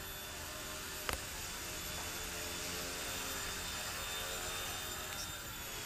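Eachine E119 mini electric RC helicopter hovering, its rotors and motor giving a steady whir with thin steady tones. One faint click about a second in.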